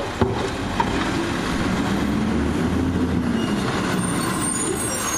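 A train passing by: a steady rumble with wavering low tones, and faint high-pitched squeals near the end.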